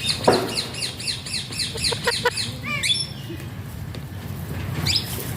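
Alexandrine parakeet calling: a fast run of high chirps, about seven a second, then a few sharp squawks that sweep in pitch about three seconds in and again near the end.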